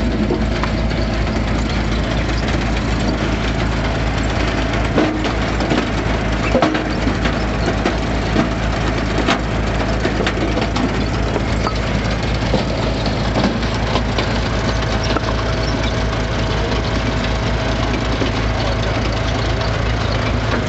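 Engine of a log splitter running steadily, with sharp cracks and clunks of wood splitting between about five and ten seconds in.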